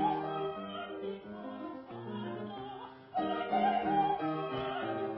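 Female student singing an early bel canto Italian song in trained classical style with vibrato, over piano accompaniment. She breaks briefly just before three seconds in, then comes back louder on a high phrase.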